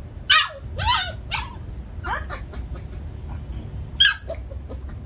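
A black Labrador retriever puppy yipping: a string of short, high-pitched barks that drop in pitch, about five of them. The loudest come just after the start and about four seconds in.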